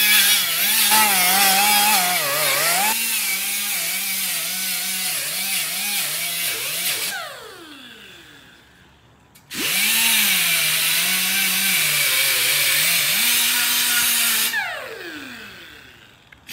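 Pneumatic die grinder working a metal bicycle fender. Its whine wavers in pitch as the wheel is pressed on and eased off the metal, over a hiss of air. It winds down about seven seconds in, starts again about two seconds later, and winds down again near the end.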